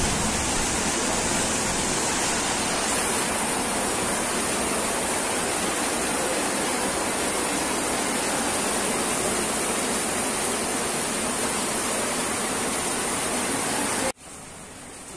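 A steady, even rushing hiss that keeps going without change, then drops off abruptly about a second before the end.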